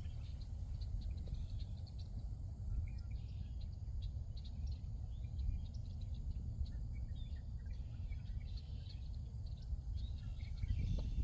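Birds chirping outdoors, short scattered calls throughout, over a steady low rumble.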